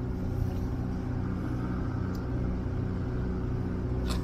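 An engine idling: a steady low rumble with an even pulse a few times a second.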